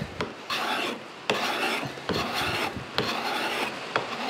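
Steel card scraper cut from an old handsaw blade, pushed in short strokes across a sapele board with a dry rasping scrape: about five strokes, a little under a second apart. The edge is taking curled shavings rather than dust, the sign of a sharp, properly turned burr.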